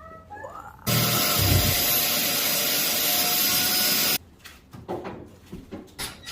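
A power tool runs in one steady burst of about three seconds, starting and stopping abruptly, while a vent opening for a microwave is being cut out.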